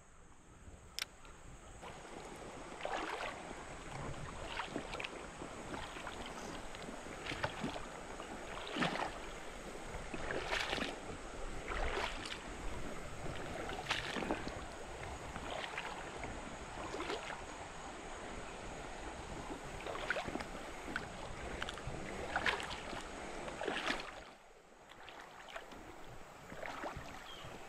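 A person wading through a shallow, rocky river: irregular splashes of the legs moving through the water, one step every second or two.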